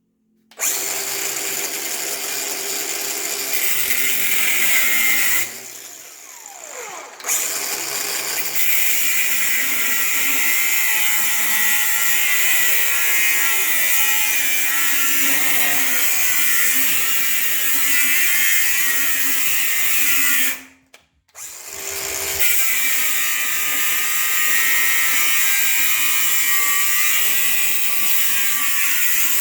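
Angle grinder with a cut-off wheel cutting through 1/4 by 1.5 inch flat steel bar, a loud, steady, high-pitched whine with grinding noise. About five seconds in it is let off and winds down with a falling pitch, then starts again; near the middle it cuts out briefly and starts again.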